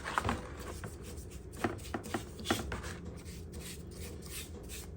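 Rubbing and scrubbing on the cross vise's top slide as it is cleaned with white spirit, with several sharp light knocks of the part or tool, one right at the start and a cluster between about one and a half and two and a half seconds in.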